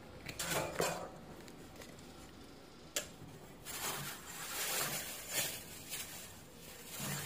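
Thin plastic bag crinkling and rustling as the apples inside are handled on a countertop, with one sharp knock about three seconds in.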